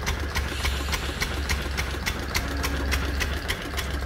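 An engine idling: a steady low hum with a regular tick about four times a second.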